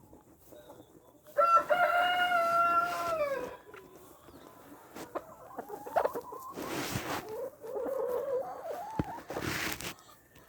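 A rooster crows once, a long held call that drops in pitch at the end, about a second and a half in. Quieter chicken clucking and squawking follows in the second half, with a couple of brief noisy scuffles.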